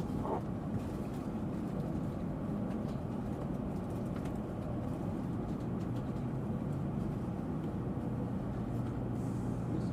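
Tokaido Shinkansen Nozomi train running, heard from inside the passenger cabin: a steady low rumble with a faint constant hum beneath it.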